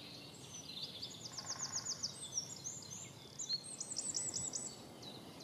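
Small songbirds singing: two quick runs of high, rapidly repeated chirping notes, one about a second in and another around four seconds, over faint outdoor background noise.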